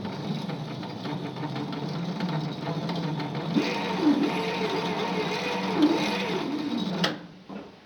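Starter motor of a 1952 M37 army truck cranking over its Dodge flathead six-cylinder engine, engaged directly by the floor starter switch without a solenoid. The engine turns steadily without firing, and the cranking stops abruptly about seven seconds in.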